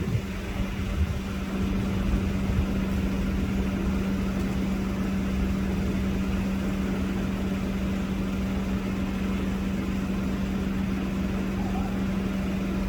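A steady hum at one unchanging pitch over a low rumble, like a vehicle engine running at constant speed.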